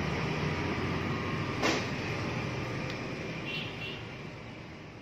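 Steady low rumble with hiss and no clear source, with one sharp click about a second and a half in and a few faint short high chirps later on. The whole sound fades out toward the end.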